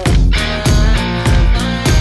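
Background music with a steady, heavy beat, about three beats every two seconds.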